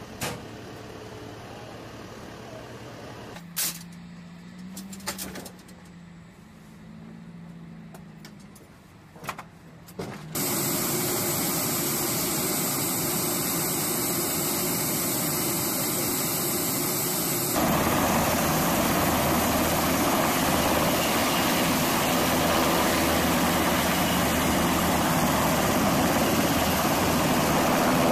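A few knocks over a low background at first. Then, about ten seconds in, the steady loud noise of Navy MH-60 Seahawk helicopters' turbines and rotors running starts abruptly, and it gets louder again with another abrupt step just past halfway.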